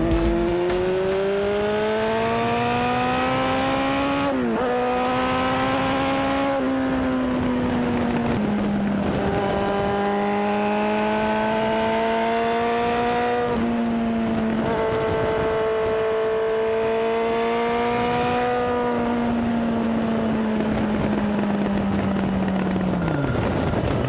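Sportbike engine heard from onboard while riding: the pitch climbs over the first few seconds, drops sharply at a gear change, then holds around a steady cruising note with a few short dips. Near the end it falls away as the bike slows. A steady rush of wind noise runs under it.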